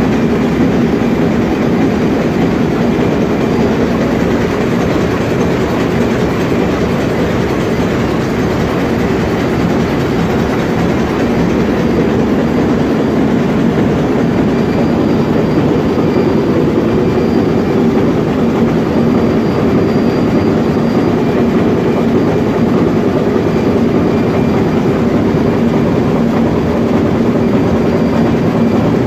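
Sulzer 6RTA62 six-cylinder two-stroke low-speed marine diesel main engine running at full speed: a loud, steady engine-room din, heard close alongside the engine.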